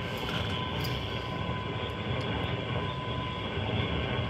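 Yaesu FT-710 HF transceiver receiving lower sideband on the 75-metre band: a steady hiss of band noise and static, with a faint steady tone running through it.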